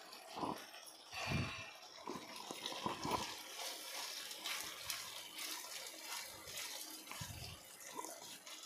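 Cornflour-thickened chilli sauce bubbling and sizzling in a nonstick pan while a silicone spatula stirs it, with a few soft knocks and scrapes of the spatula against the pan.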